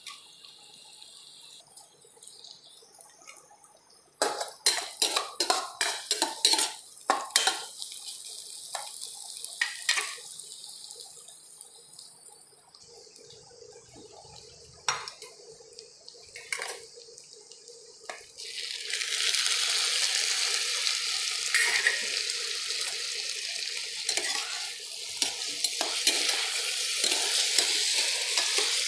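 A spatula clacks and scrapes against a nonstick pan as sliced onions are stirred, in a quick run of taps and then a few scattered ones. About two-thirds of the way through, a loud, steady sizzle sets in as tomato slices go into the hot oil, with occasional spatula taps over it.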